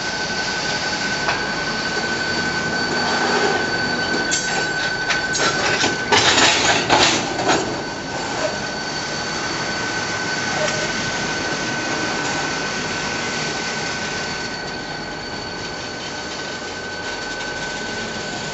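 Norfolk Southern freight train of boxcars and tank cars rolling past, its wheels running with a steady high-pitched squeal. About six seconds in there is a cluster of loud bangs lasting a second or two.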